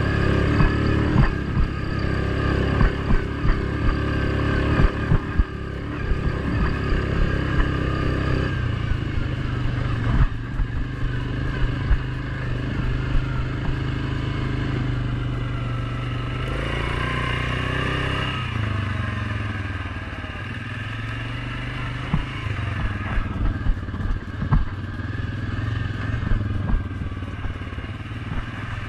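Suzuki King Quad 750 ATV's single-cylinder engine running under way, its pitch shifting up and down as the speed changes, with a rise and fall a little past the middle. Short knocks and rattles from the machine jolting over the bumpy track run through it.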